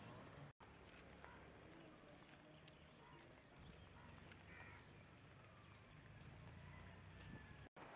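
Near silence: faint outdoor background noise, cut by two brief dropouts to total silence, one under a second in and one near the end.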